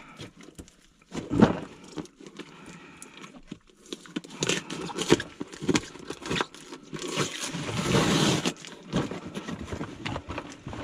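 Packaging being opened and handled as a new piggyback float switch is unpacked: crinkling and rustling with scattered light knocks, the rustling densest about two-thirds of the way through.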